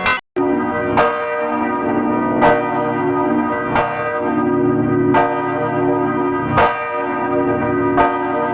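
Church bell tolling: a strike about every second and a half, six in all, each sounding over the last one's hum. There is a brief cut to silence just after the start.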